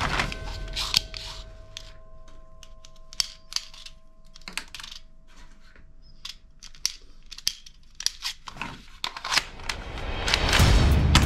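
Plastic toy guns being handled and shifted in a cardboard box: scattered sharp clicks, knocks and rattles, irregular and of varying loudness. Background music comes back in loudly near the end.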